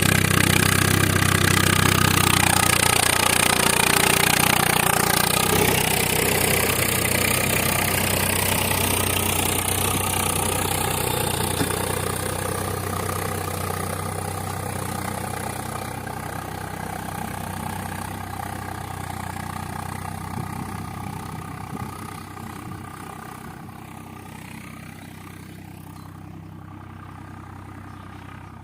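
Diesel engine of heavy farm or earthmoving machinery running steadily and growing gradually fainter.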